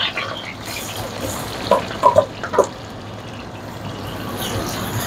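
Sliced onions frying in hot oil in a kazan: a steady, even sizzle that swells slightly near the end.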